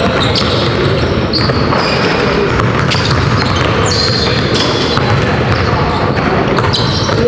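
Several basketballs bouncing on a hardwood gym floor in a busy, overlapping clatter, echoing around a large gym.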